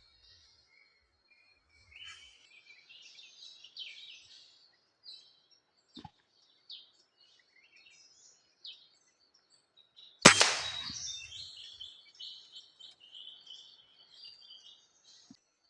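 Small birds chirping and calling on and off, and about ten seconds in a single sharp crack of a PCP air rifle shot, the loudest sound, after which the chirping carries on.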